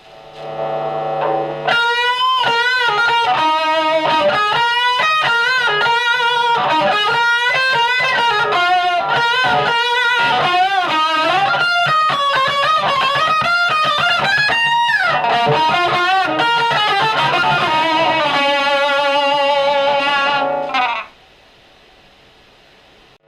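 Red Special electric guitar played loud through amplifiers: a sustained lead phrase of singing notes with vibrato and string bends, entering after a soft start. About 21 seconds in the playing stops abruptly, leaving the amps' steady hum.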